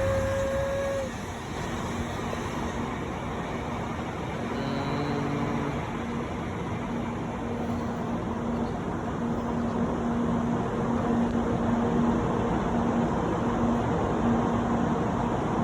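Steady rumble of railway noise on a station platform, with a low hum that comes in about four seconds in and wavers on and off.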